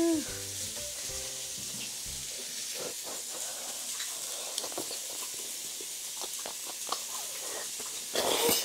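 Steak sizzling steadily on a hot cast-iron grill pan, with scattered mouth and chewing noises from eating noodles and a louder burst of eating noise near the end.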